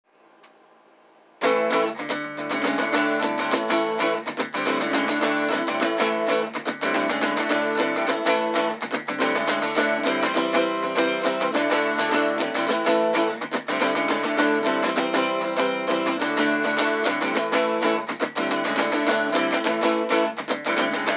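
Acoustic guitar strummed with a pick in a steady rhythm, chords ringing; it starts about a second and a half in after a brief quiet.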